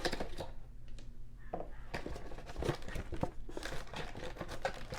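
Plastic wrapping crinkling and tearing as a trading-card blaster box is handled and opened, with many small irregular rustles and clicks.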